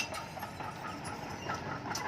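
Crawler bulldozer at work: a low engine rumble under the rhythmic clank and squeak of its steel tracks, about four or five clicks a second.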